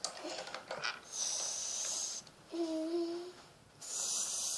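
A child making pretend tea-drinking noises with her mouth: a hissing slurp, a short hummed "mmm", then another slurp near the end.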